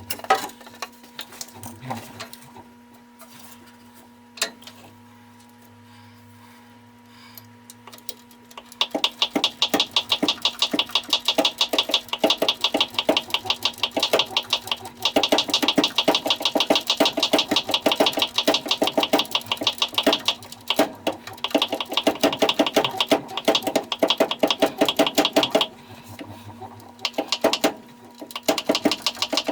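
Rapid, even mechanical clicking, about ten clicks a second, over a steady hum. It starts about nine seconds in and stops a few seconds before the end.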